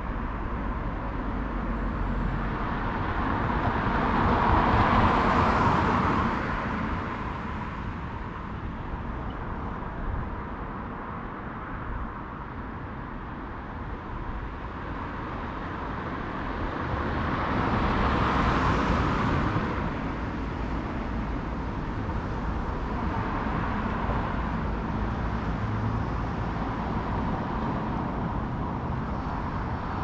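Road traffic: a steady low hum of traffic with cars driving past, two louder pass-bys swelling and fading about five seconds in and again just past the middle.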